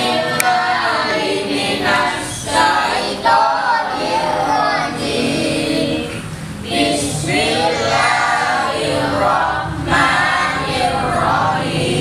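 A group of children chanting a prayer together in a sing-song melody, phrase after phrase with short breaths between.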